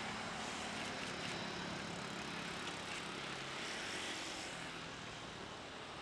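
Rolls-Royce Trent 7000 engines of an Airbus A330-900neo on its runway roll: a steady rushing jet noise with a faint high whine, easing slightly near the end.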